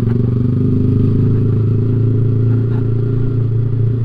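Yamaha sport motorcycle engine running steadily under light throttle at low road speed, as heard from the rider's position. The bike picks up gently from about 24 to 30 km/h.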